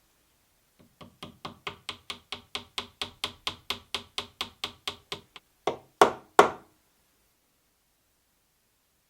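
Rapid, even tapping on wood, about five light strikes a second, followed by three heavier blows; a hand tool striking wood during hand-tool joinery work.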